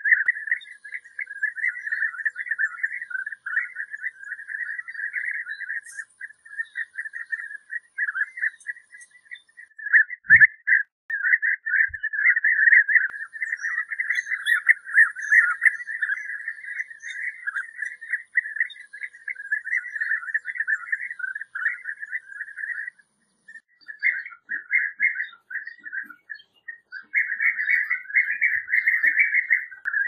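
European bee-eater calls: a dense, near-continuous run of rapid rolling, chirping notes at a steady pitch, with two short pauses late on.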